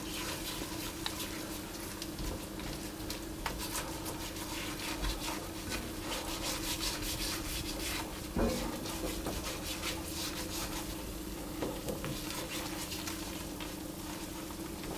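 Silicone spatula stirring and scraping a thick butter-and-flour roux around an enamelled cast-iron pan, with the roux softly sizzling as it cooks. A steady low hum sits underneath.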